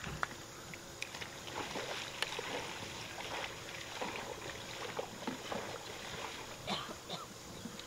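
Soft lake water sloshing and lightly splashing around people standing in it, with small splashes scattered through.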